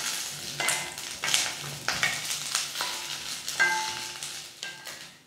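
Sliced drumsticks (moringa pods) sizzling gently in ghee in a stainless steel kadai while a wooden spatula stirs them, scraping and knocking against the pan. One knock, about three and a half seconds in, makes the steel pan ring briefly.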